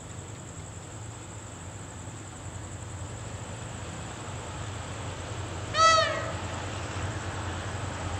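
A single short cat meow, rising then falling in pitch, about six seconds in. It sounds over the steady low rumble of an approaching diesel freight locomotive, which slowly grows louder.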